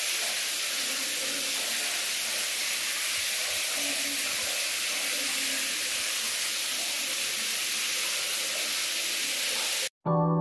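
Shower spray running steadily onto a tiled shower floor, an even hiss that cuts off suddenly near the end.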